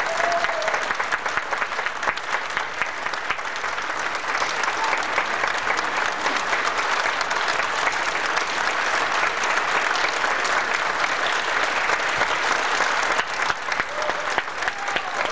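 Audience applauding steadily in a concert hall. A voice calls out briefly at the start, and again near the end.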